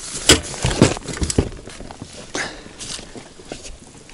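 Knocks and thumps of a landing net being grabbed and pulled out from among gear in an inflatable boat. There are several sharp knocks in the first second and a half, then softer, scattered ones.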